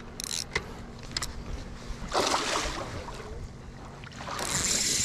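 Water splashing around a fishing kayak: two louder rushes of splashing, one about two seconds in and one building near the end, with a few light clicks in the first second or so.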